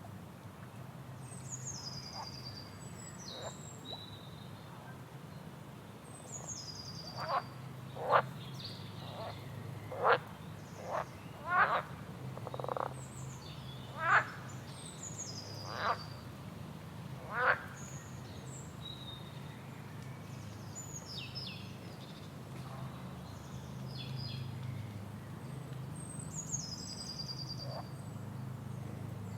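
Frogs croaking: a run of about ten loud, short croaks in the middle of the stretch. Birds sing high, falling trilled phrases now and then throughout. A steady low hum runs underneath.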